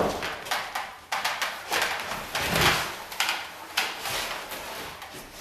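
Knocks, bumps and scraping of a large wooden frame being handled and lowered by hand, several separate knocks spread over a few seconds.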